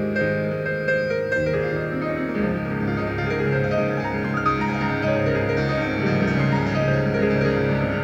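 Live instrumental piano music: a played piano line with sustained chords and deep low notes filling in from about two and a half seconds in.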